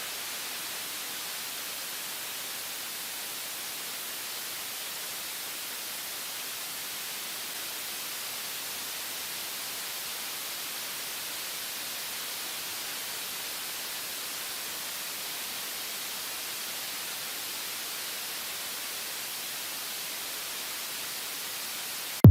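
Steady, even hiss of static-like white noise, strongest in the high range, unchanging throughout.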